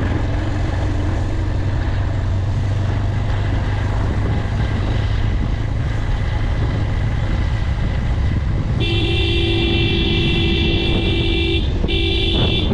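Motorcycle riding along with a steady engine and road rumble. About nine seconds in, a horn sounds one long blast of nearly three seconds, then after a brief gap a second blast starts near the end.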